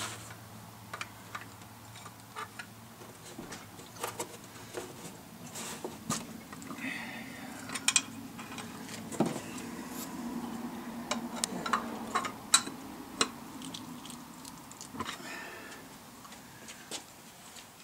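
A metal pry tool clicking, scraping and knocking against the cast aluminium case of a Tremec T56 six-speed transmission as its front cover is pried loose. The sharp ticks and knocks come irregularly, because the cover is tight and hard to work off.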